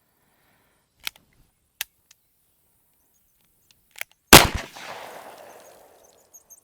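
One loud, sharp shot about four seconds in, with a tail that dies away over about a second and a half. A few small clicks come before it.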